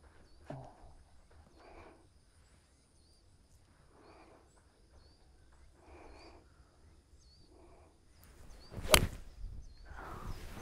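Golf iron striking the ball out of a fairway bunker: a single sharp crack about nine seconds in. Before it, faint high chirping in the background.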